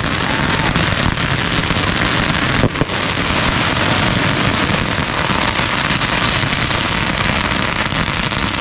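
Consumer fireworks going off, a dense, unbroken crackle with one sharper crack a little under three seconds in.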